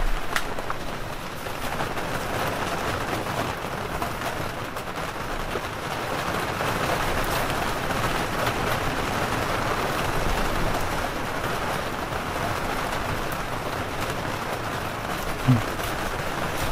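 Rain from a night thunderstorm falling steadily on the campervan, an even hiss.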